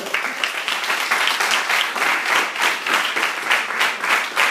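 Audience applauding, many people clapping at a steady, loud level.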